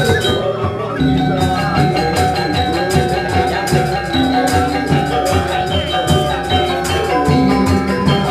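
Balinese gamelan music: struck metal instruments sounding sustained, repeating notes over a steady run of sharp cymbal-like clashes.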